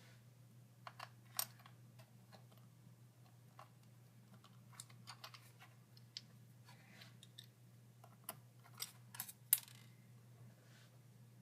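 Scattered light metallic clicks and ticks from a screwdriver and small screws as the bottom-case screws of a Retina MacBook Pro are taken out and set down, with a run of sharper clicks near the end, over a faint steady hum.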